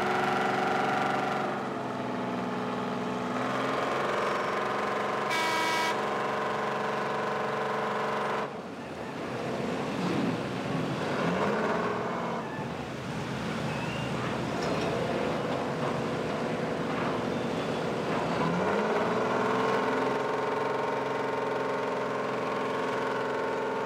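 Boat engines running steadily, one engine's pitch rising as it speeds up about halfway through and again later on.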